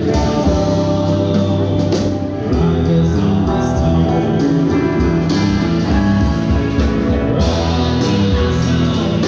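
Street band busking live: two guitars and a drum kit playing a song, with singing over it.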